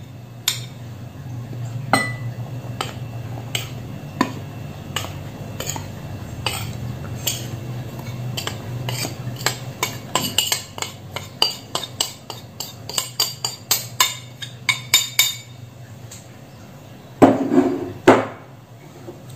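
A metal spoon clinking and scraping against bowls as flour is scooped out and tipped into a ceramic mixing bowl. The taps are light and uneven, come thicker and faster in the middle, and sit over a steady low hum. Two louder knocks come near the end.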